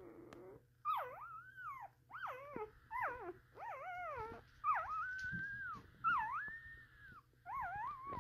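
Newborn Border Collie puppy crying in a string of high squealing whines, each one swooping down and back up in pitch, about eight to ten in a row.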